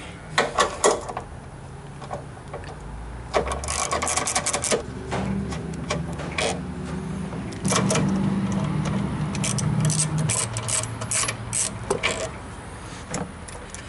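Ratchet and 13 mm socket backing out the radiator's top mounting bolts: quick runs of ratchet clicking and metal tool clicks, with a low steady hum under the middle few seconds.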